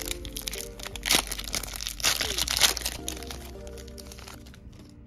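Foil wrapper of a Panini Prizm basketball card pack being torn open and crinkled by hand: irregular crackling, loudest about a second in and again around two seconds in, over background music.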